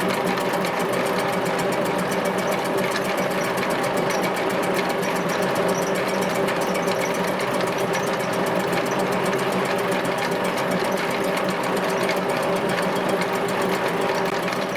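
A machine running steadily with a fast, even clatter.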